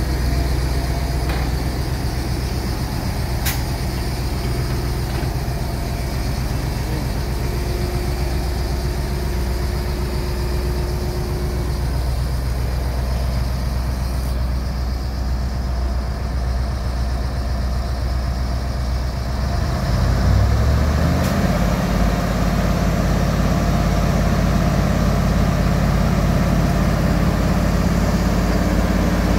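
Wirtgen W1900 cold milling machine's diesel engine idling steadily, then speeding up about twenty seconds in and running on at a higher, louder pitch.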